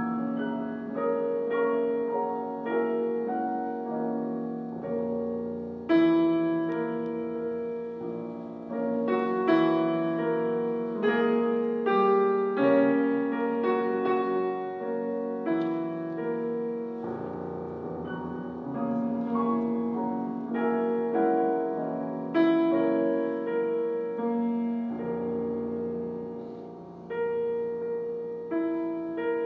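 Solo classical piano on a concert grand: chords and melody with the notes ringing on, and a louder accented chord struck about six seconds in.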